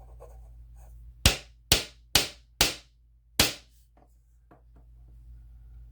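Kizer Latt Vind Mini folding knife snapping five times in quick, uneven succession: the blade being flipped open and shut, with a sharp metallic click each time. The liner lock is barely engaging as the blade locks.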